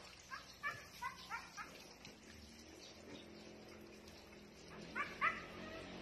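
An animal's short, high calls: a quick run of about five in the first two seconds, then a louder pair near the end.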